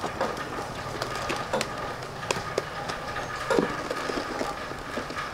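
Clear plastic packaging and a plastic tray being handled, with scattered light clicks, taps and crinkles over a faint steady hum.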